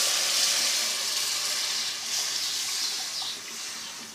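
Water going into a hot pot of fried onion-tomato masala, sizzling and hissing, then slowly fading.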